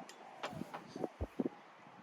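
A handful of faint, short clicks and light taps, about five of them spread over a second, from something small being handled.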